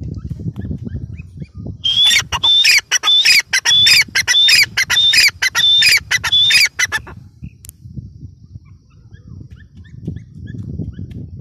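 Grey francolin (teetar) calling: a loud run of repeated, high-pitched harsh notes, about three a second. It starts about two seconds in and stops about five seconds later.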